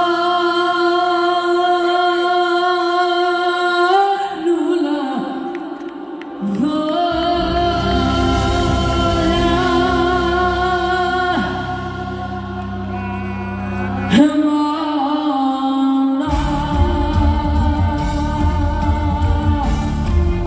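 A female lead singer holding long, sustained notes with a live band. Bass and drums come in about seven seconds in, drop away briefly, then return fuller a few seconds before the end.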